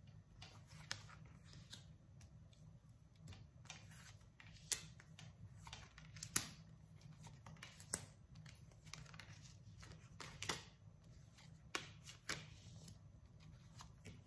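Tarot cards being laid out on a table by hand: faint, irregular light slaps and slides of cards, the sharpest two about five and six seconds in, over a low steady hum.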